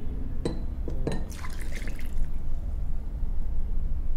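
Brewed tea poured from a glass jug into a small glass mug, splashing and filling it, with a few light clicks near the start.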